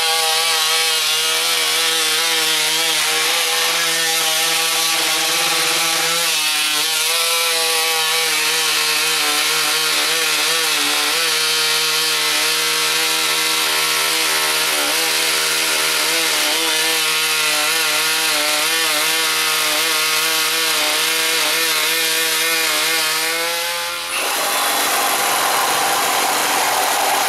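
Corded Dremel Velocity oscillating multi-tool with a 7-amp motor cutting into a wooden board, a steady pitched hum that wavers slightly in pitch under load. About 24 seconds in it stops and a cordless Milwaukee oscillating tool takes over the cut, with a noisier, higher sound.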